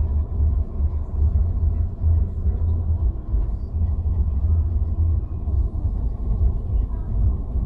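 Low, steady rumble of a car's engine and tyres heard from inside the cabin while driving on a snow-covered road.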